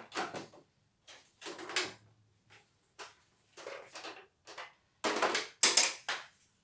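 A string of irregular clunks and knocks as a portable embroidery machine is lifted off a wooden bench and carried off, loudest about five to six seconds in.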